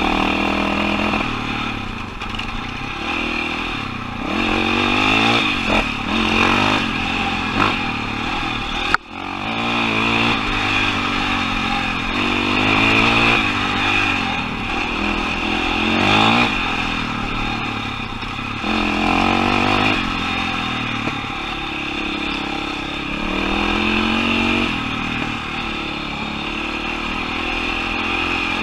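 KTM 525 XC-W dirt bike's single-cylinder four-stroke engine under way, revving up and easing off over and over as the rider works the throttle and gears. About nine seconds in there is a sharp click and a momentary drop in the sound.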